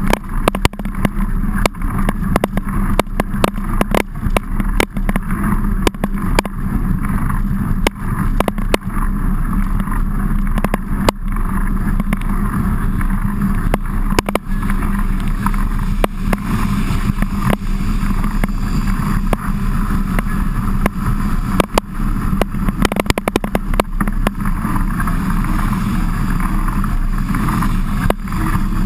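Steady rumble of a mountain bike being ridden over rough, wet ground, heard from a camera mounted on the bike, with frequent short knocks and rattles from the bike and wind on the microphone.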